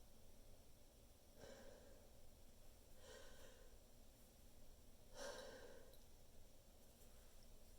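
A person's faint breaths: three short, breathy intakes about a second and a half apart, the last a little louder. This is the hitching build-up before a sneeze, not yet the sneeze itself.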